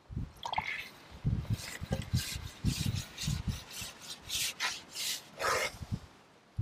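Repeated rubbing and scraping in short, uneven strokes as a carbon fishing pole is handled and shipped out over the water.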